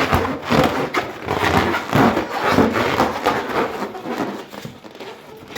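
Hands rubbing an inflated rubber balloon, giving a rapid run of rubbery squeaks and scrapes that tails off near the end.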